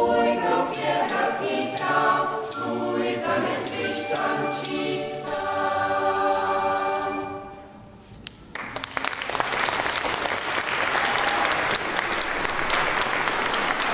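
Choir singing a piece to its end, the last chord held and dying away about eight seconds in. The audience then breaks into applause, which carries on to the end.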